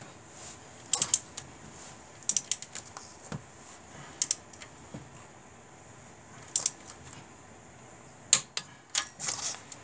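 Ratchet head of a long torque wrench clicking in short groups of sharp clicks every second or two as it works a cylinder head bolt down to torque.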